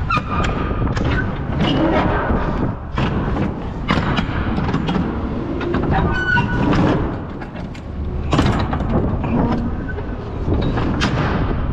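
Irregular metal clanks and knocks from a Wabash DuraPlate dry-van semi-trailer's rear swing door and its lock hardware being handled as the door is closed, over a steady low rumble.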